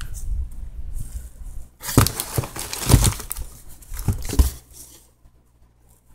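Paper-wrapped cardboard firework canister shells being shuffled and lifted out of a cardboard box: rustling and crinkling of the wrappers, with a few sharp knocks of tubes against each other.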